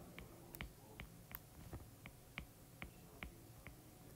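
Faint, sharp clicks of a stylus tip tapping the glass of a tablet screen while handwriting, about two or three a second, over a low room hum.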